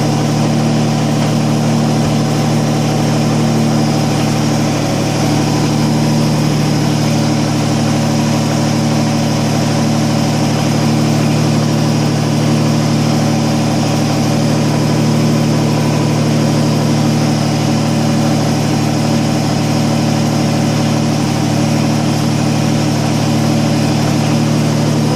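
Kubota BX25D compact tractor's three-cylinder diesel engine running steadily at a constant speed.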